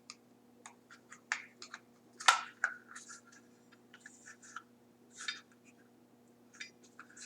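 Plastic parts of a panel-mount connector frame and cover being handled and fitted: scattered small clicks and scrapes, the sharpest a little over two seconds in, over a faint steady hum.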